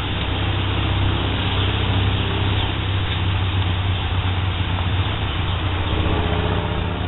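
A motor vehicle's engine running steadily: a low hum with a hiss over it, growing a little louder about a second in.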